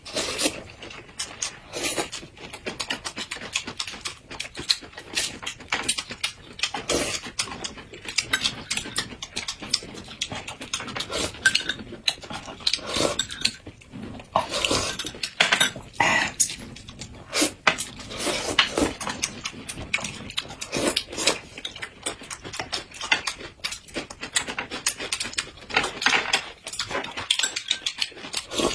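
Close-up eating sounds: noodles being slurped and food chewed with wet smacking, in quick irregular bursts.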